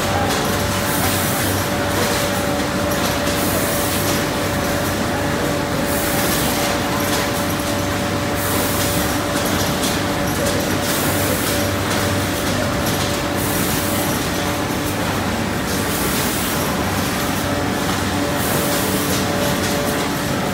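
Ice cream stick-bar production line running: conveyors and flow-wrapping machines give a steady mechanical drone with a constant hum. Bursts of hiss recur every two to three seconds over it.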